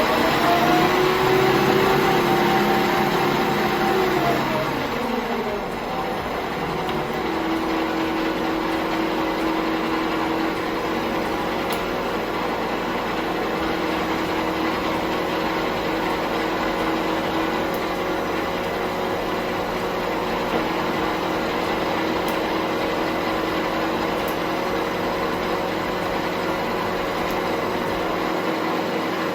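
Bernardo Profi 550 WQV mini metal lathe running under power: its motor and spindle hum at one speed, drop in pitch about five seconds in, then run steadily at a lower speed.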